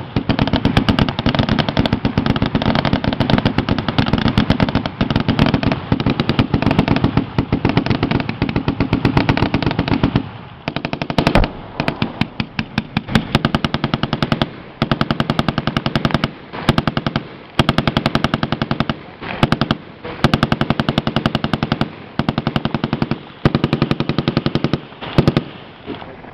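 Automatic machine-gun fire: continuous for about the first ten seconds, then in short bursts with brief pauses between them, stopping just before the end.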